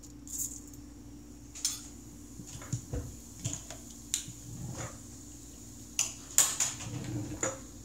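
Scattered metal clinks and taps of a spoon and spice box against a stainless-steel Instant Pot inner pot as mustard seeds are added to hot oil, over a faint steady low hum.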